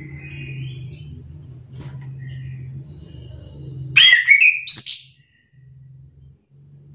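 Chestnut-capped thrush (anis kembang) singing: soft rising notes at first, then about four seconds in a loud, brief phrase of a sharp note sliding down followed by a higher note. A low steady hum sits underneath.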